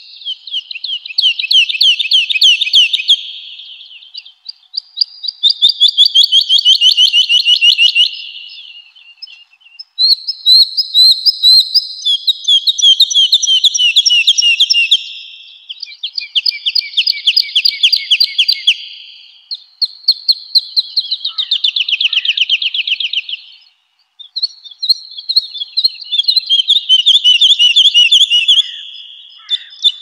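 Woodlark singing: about seven phrases, each a fast run of repeated notes lasting three to five seconds, several falling in pitch toward the end, with short pauses between them.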